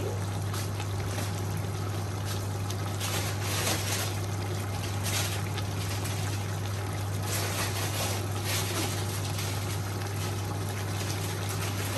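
Lamb curry broth simmering and bubbling in a pot on the stove, a steady liquid hiss with a constant low hum underneath.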